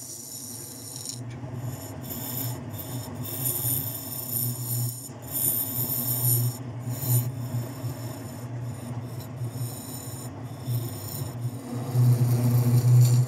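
Bowl gouge cutting into an almond root ball spinning on a wood lathe: uneven hissing, scraping strokes as long shavings peel off, over the lathe's steady low hum. The cut is loudest near the end.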